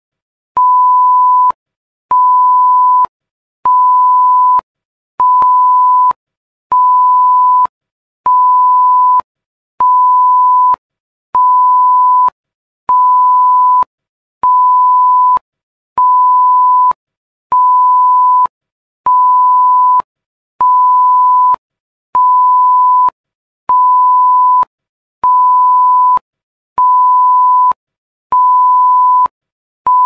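Censor bleep: a single steady beep tone repeated about every second and a half, each beep just under a second long with short silent gaps between.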